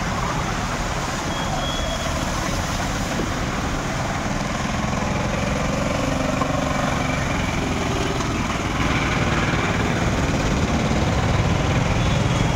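Street traffic moving slowly through floodwater: engines of cars, a small goods truck and motorcycles running as their wheels wash through the water on the road. Steady, growing a little louder about nine seconds in.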